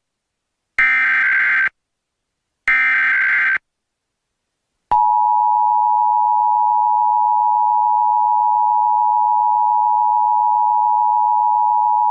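Emergency Alert System tones: the last two of three short digital SAME header bursts, each about a second long, then from about five seconds in the steady two-tone EAS attention signal. They open a mock alert for a 911 telephone outage.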